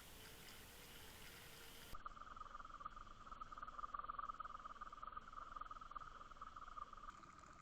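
Faint steady buzzing hum of a boat motor, starting abruptly about two seconds in after a stretch of faint hiss.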